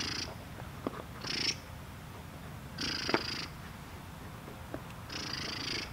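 German Shepherd puppy breathing hard through its nose while gripping a tug toy in its mouth: about four noisy huffs, one every one and a half to two seconds.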